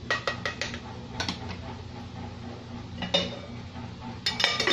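Serving ladle clinking against a cooking pot and a glass serving bowl as soup is dished up: a quick run of clinks at the start, two more about a second in, and one around three seconds. Near the end comes the loudest clatter, the aluminium lid being set back on the pot.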